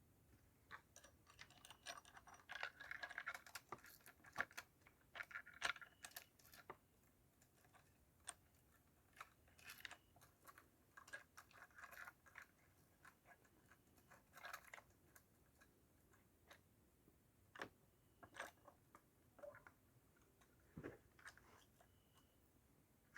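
Faint, irregular clicks, taps and light scrapes of small metal parts and hand tools being handled during work on a chainsaw's clutch.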